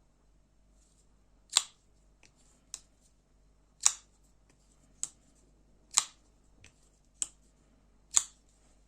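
Enlan M011 folding knife being opened and closed over and over at a steady pace: four loud snaps as the blade swings out and locks open, alternating with three softer clicks as it is closed, a little over a second apart.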